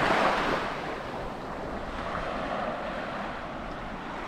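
Gentle surf washing up a sandy beach: a steady hiss of water that swells briefly near the start.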